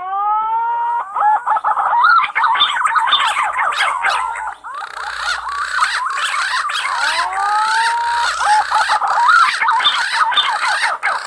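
Green pigeons (punai) calling: many overlapping whistled notes gliding up and down, with a clear rising whistle at the start and another about seven seconds in.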